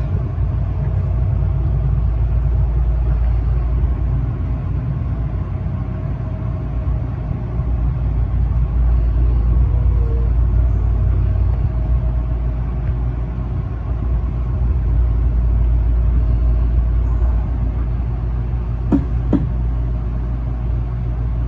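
Tobu 9000 series electric train running, a steady low rumble heard from inside the leading car. Near the end there are two sharp knocks about half a second apart.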